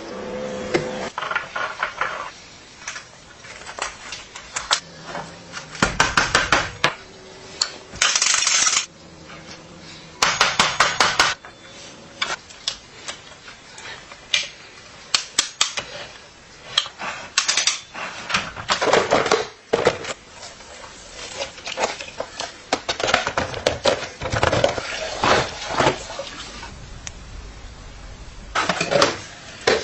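Metal parts and hand tools clinking, tapping and scraping, with several short spells of rapid repeated strokes.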